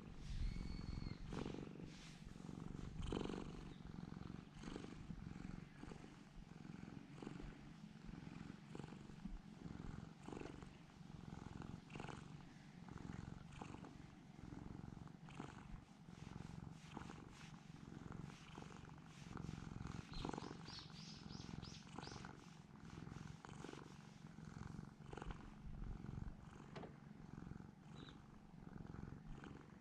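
Domestic cat purring steadily, a low continuous rumble, in contentment at being stroked.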